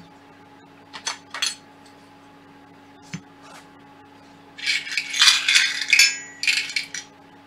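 A few light knocks as metal parts are handled and set down on the bench. Then, for about two and a half seconds near the end, small steel screws clink and rattle as fingers rummage through a small plastic tray of hardware.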